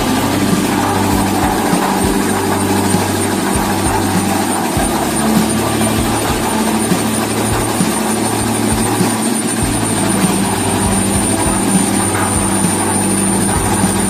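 Concrete mixer machine running: a steady loud mechanical drone with irregular low knocks and rattles.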